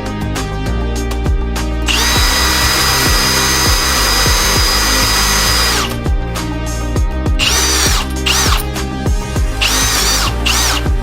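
Electric power drill running: a steady high whine for about four seconds, then several short trigger pulls in which the motor spins up and back down.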